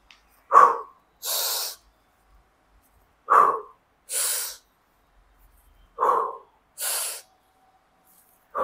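A man breathing hard in time with triceps pushdown repetitions, about every two and a half to three seconds: each rep a short, sharp burst of breath followed by a longer hissing breath, three times, with a fourth burst starting at the very end.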